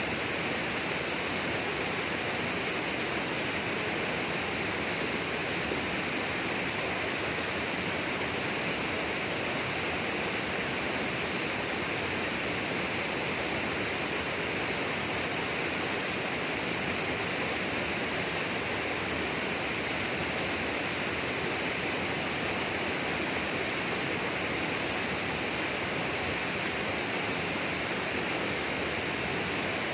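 Steady, unbroken rush of running water, an even hiss with no change in level.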